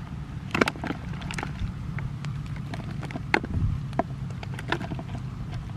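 Eels and small fish slapping and wriggling into a plastic bucket as a woven bamboo fish trap is shaken out over it: scattered sharp taps and knocks, several clusters, over a steady low rumble.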